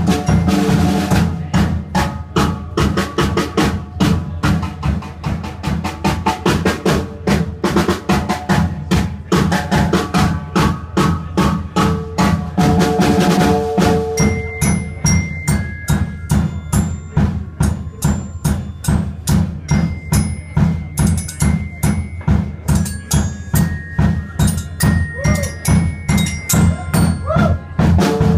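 Live instrumental rock: a drum kit played with sticks in a fast, steady beat on bass drum and snare, under electric guitar with sustained notes. About halfway through, thin high held tones come in over the drumming.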